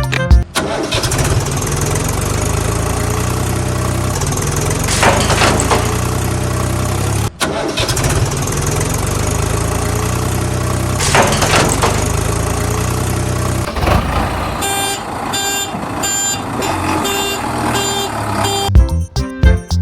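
Tractor engine running with a steady low drone, broken off for an instant about seven seconds in. In the last few seconds it gives way to a different sound with a regular beat.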